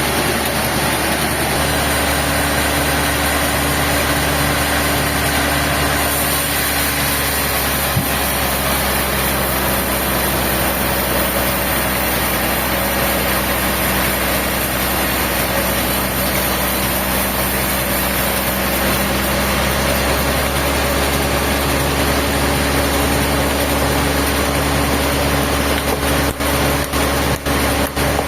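An engine running steadily, its hum shifting in pitch about twenty seconds in, with a few brief dropouts near the end.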